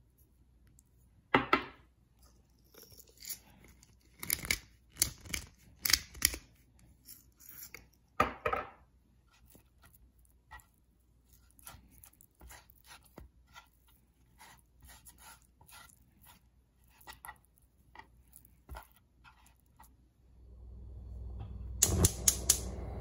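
Raw salmon fillet being handled on a plastic cutting board: scattered soft knocks, rustles and scrapes, loudest in the first nine seconds. Near the end a steady noise comes up, and a quick run of four sharp clicks sounds.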